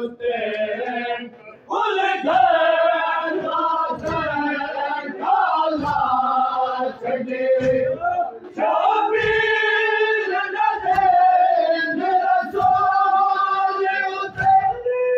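A group of men chanting a noha, a Shia mourning lament, in unison with long held notes. Dull thuds of hands striking chests (matam) fall between the phrases.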